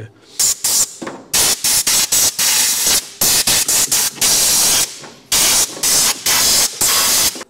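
Compressed-air blow gun hissing in a rapid series of short blasts, a few held for about half a second, blowing oil out of an engine's valve gear.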